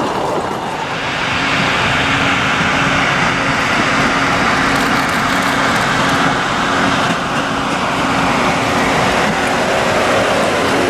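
Narrow-gauge Mk48 diesel locomotive running as it approaches and draws alongside hauling open passenger cars, its engine mixed with the steady sound of wheels rolling on the rails.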